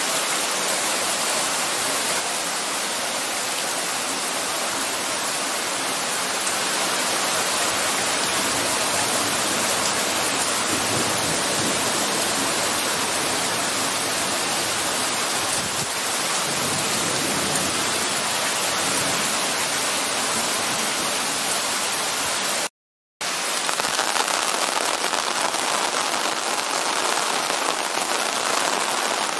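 Torrential rain pouring down in a steady, dense hiss. It drops out for a split second near the end.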